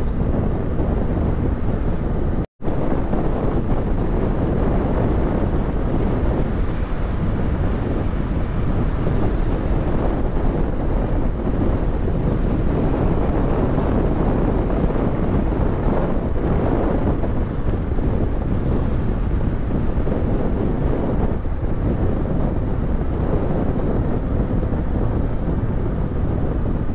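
Wind buffeting the microphone while riding a Yamaha Ténéré 700 motorcycle, with its parallel-twin engine running underneath at steady road speed. The sound cuts out completely for an instant about two and a half seconds in.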